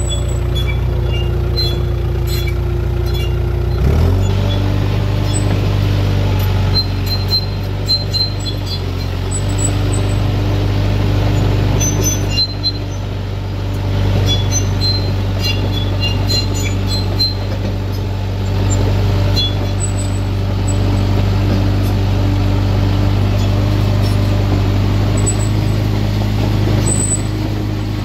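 Engine running steadily, stepping up to a higher speed about four seconds in and holding there.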